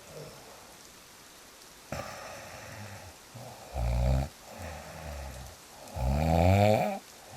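A person snoring, starting about two seconds in after a faint hiss. There is a loud snore, then a softer one, then a long loud snore whose pitch rises.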